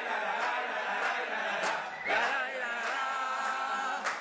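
A group of voices chanting together, in the style of a football crowd chant, with a sharp hit near the end.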